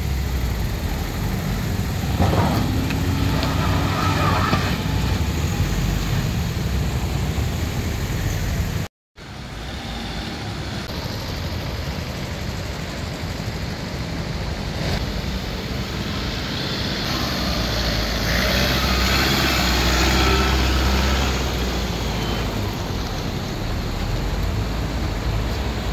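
Car engine running as a Toyota Innova MPV drives slowly up a steep, rutted dirt track. The sound is steady throughout, with a brief dropout about nine seconds in.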